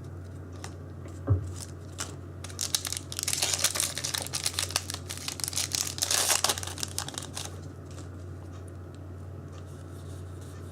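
Foil booster pack wrapper being torn open and crinkled: a dense run of crackling rustles in the middle, after a single knock about a second in.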